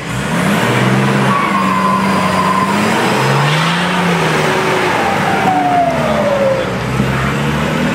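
Nissan Patrol 4x4's engine revving up and down as the vehicle pulls over rough off-road ground, its pitch rising and falling several times.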